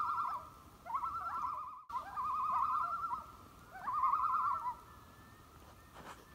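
Common loon giving its tremolo, a rapidly quavering call repeated four times over about five seconds, each call about a second long and opening with a short rising note.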